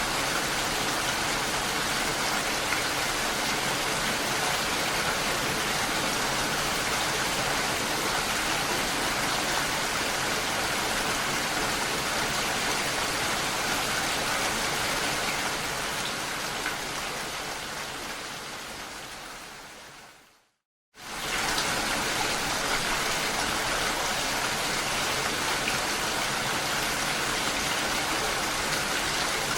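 Steady rain falling on a lake, an even hiss. About two-thirds of the way through it fades out over a few seconds to brief silence, then starts again abruptly, like the seam of a looped recording.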